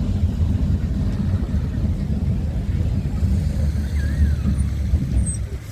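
Boat-class tram 600 running along the track: a steady low rumble of wheels and motors, with wind buffeting the microphone on the open-top deck.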